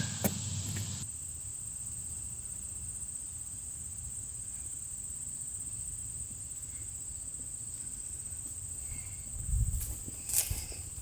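Crickets chirring steadily at a high pitch, with a couple of sharp clicks right at the start and low thuds of footsteps on grass near the end.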